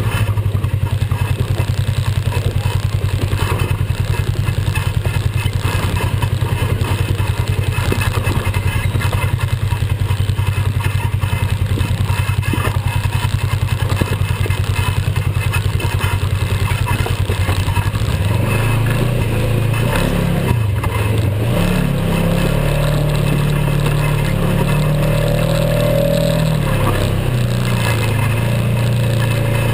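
Polaris RZR XP 900 side-by-side's 875 cc parallel-twin engine running as it drives over a rough, rocky dirt track, heard from the vehicle itself. It runs steadily at first, then from about 18 seconds in its revs rise and fall repeatedly.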